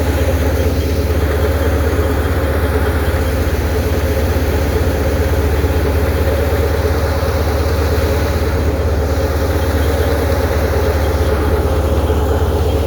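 Heavy diesel farm machinery engine running steadily and loudly with a deep, unbroken drone, as when a tractor drives a wheat thresher.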